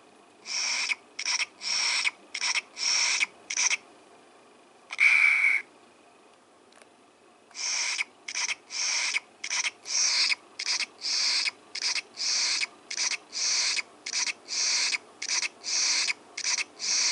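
Little Live Pets puppy toy's built-in speaker playing its electronic drinking sound effect as its toy bottle is held to its mouth: short, identical sucking sounds. A few come in the first four seconds and one longer sound about five seconds in, then a steady run of about two a second from about seven and a half seconds on.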